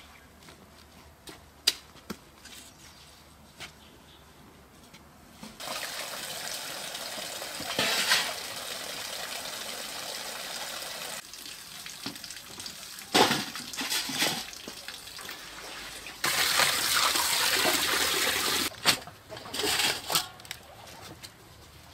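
Water from an outdoor tap running into a stainless steel basin as leafy greens are rinsed in it, starting about a quarter of the way in and louder for a few seconds later on. Near the end, a few light knocks as the greens are handled.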